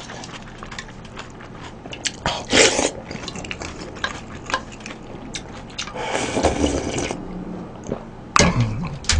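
Close-miked slurping and chewing as a person eats noodle soup straight from a lifted bowl, with chopsticks clicking against the bowl. Longer slurps come about two and a half and six and a half seconds in.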